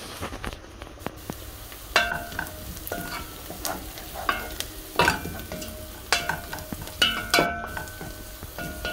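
Chopped onions frying in oil in a metal pot, stirred with a spoon that knocks against the pot about once a second, each knock ringing briefly. The onions are being browned toward golden brown.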